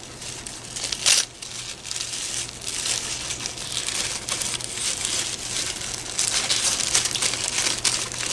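Packaging crinkling and rustling as a parcel is unwrapped by hand, with one sharp crackle about a second in.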